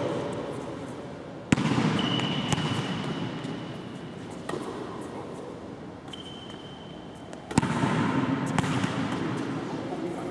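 Two sharp volleyball impacts on the hard court floor, about six seconds apart, each ringing out with a long echo through the big empty gym hall, with a smaller knock after each. Two short high squeaks come in between.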